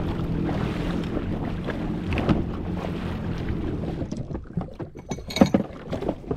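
Wind buffeting the microphone and sea water moving around a jet ski, a steady low rumble for the first few seconds. It then drops quieter, with a few short sharp knocks from gear being handled near the end.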